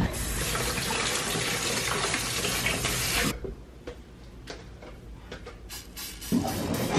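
A steady rushing noise like running water for about three seconds, cut off suddenly; then a metal spoon stirring thick brownie batter in a glass mixing bowl, with short clinks and scrapes against the glass.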